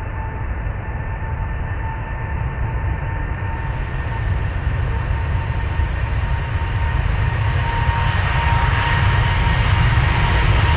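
Airliner's engines running: a steady roar with a high whine, growing louder as the aircraft comes closer.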